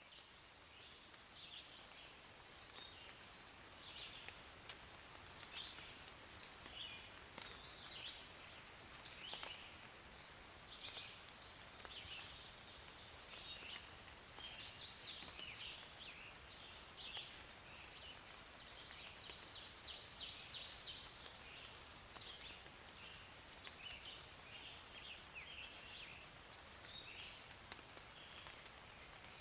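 Faint chorus of small birds chirping and trilling in many short, irregular calls over a soft steady hiss, with a louder trill about halfway through.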